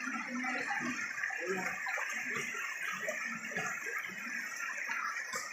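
Shallow stream water rushing over stones and through a rock-filled gabion weir, a steady even wash, with indistinct low voices under it.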